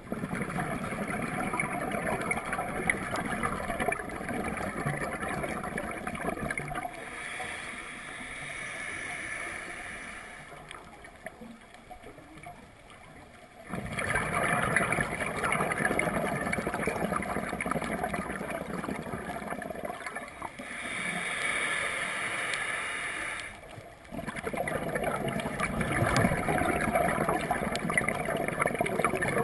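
Underwater gurgling and rushing of scuba divers' exhaled regulator bubbles, heard through a camera housing. It comes in long loud spells that stop and start abruptly, with a quieter stretch a third of the way in.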